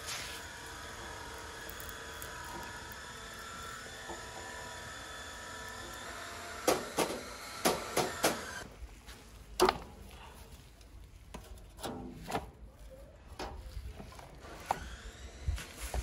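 Sharp metallic clicks and knocks of hand tools and loose parts on an old, rusted table fan as it is taken apart. A cluster of them comes in quick succession about halfway through, followed by scattered lighter clicks.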